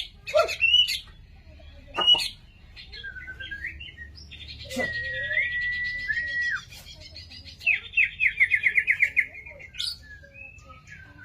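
White-rumped shama (murai batu) singing a varied song of clear whistles and chirps, with one long held note midway and then a fast trill of about seven notes a second.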